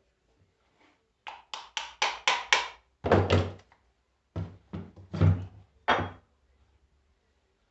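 Knocking and tapping on the metal parts of a car starter motor being taken apart: about six quick knocks in a row, a louder cluster, then several more knocks.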